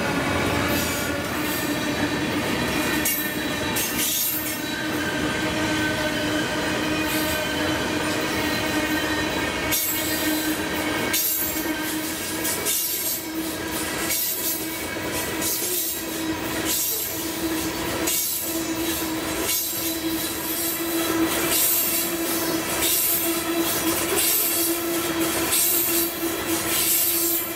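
Norfolk Southern freight train cars rolling past, with a steady pitched squeal from the wheels on the rails. From about ten seconds in there is a regular click, about one a second, of wheels over the rail.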